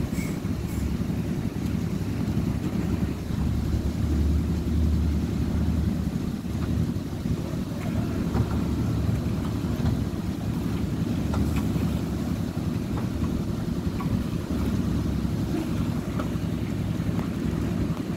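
A small engine running steadily on a concrete-pour site, low-pitched and even, with faint scrapes and knocks of hand tools working the wet concrete.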